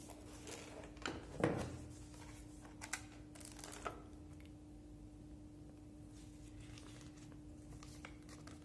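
Cardboard box being handled and opened on a wooden table: a thump with lid rustling about one and a half seconds in and a few more scrapes and clicks, then softer paper rustling as a folded instruction leaflet is unfolded. A faint steady hum sits underneath.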